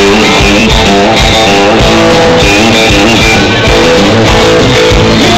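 Live band playing loud amplified dance music: a guitar-led melody of stepping notes over drums and bass with a steady beat.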